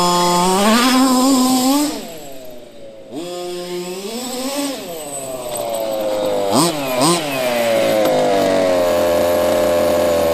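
Losi MTXL RC monster truck's small two-stroke gas engine revving up and down as the truck drives. The throttle drops back near idle after about two seconds, climbs again, gets two quick blips around the middle, then holds a steady high pitch to the end.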